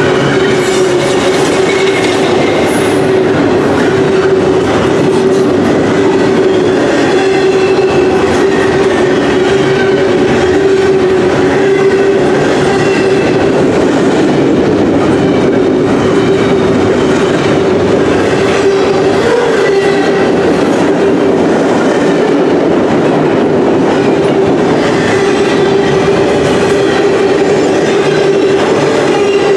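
Double-stack intermodal container train rolling past close by: a loud, steady rumble of wheels on rail, with a steady tone running through it.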